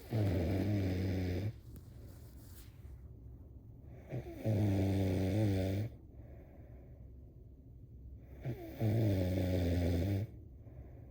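A sleeping person snoring: three loud, evenly spaced snores about four seconds apart, each a low, steady drone lasting over a second. A short tick comes just before the second and third snores.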